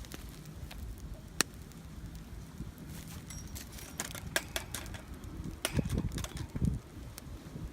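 Wood fire burning in a small fire pit, crackling with scattered sharp pops, with a cluster of pops around the middle and a low rumble that swells briefly near the end.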